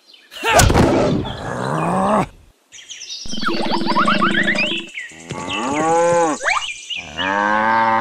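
Cattle mooing: several separate long moos in a row, each rising and then falling in pitch.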